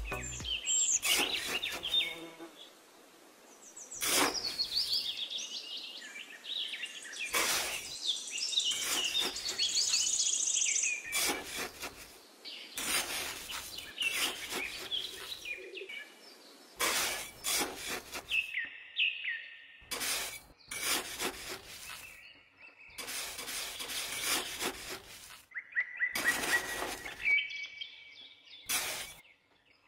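Small hand trowel scraping and cutting into damp packed sand in short, repeated strokes, with birds chirping alongside.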